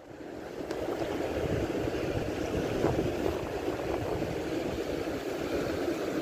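Steady wind on the microphone, mixed with sea washing over the breakwater rocks below, swelling over the first second and then holding even.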